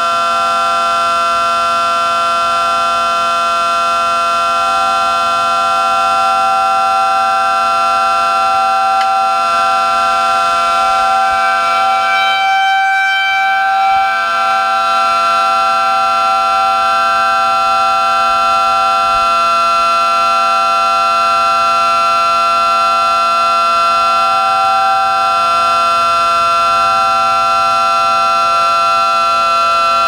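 3D-printed miniature Federal Signal SD10 siren with a 12/9-port rotor, running at full speed on a regulated 5 volts and sounding a steady two-tone chord at a held, slightly lowered and more realistic pitch. The upper tones dip briefly about halfway through.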